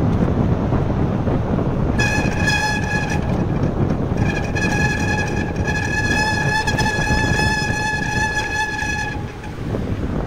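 Wind rushing over the microphone on a moving bicycle, with a steady high-pitched brake squeal that sounds briefly and then again for about five seconds, as the bike slows toward a junction.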